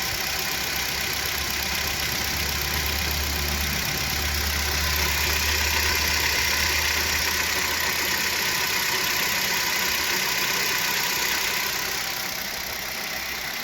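Kia Rio 1.6 four-cylinder engine idling, with a knock that is hard to hear over the engine. The knock comes from the hydraulic power-steering pump, not from worn pistons.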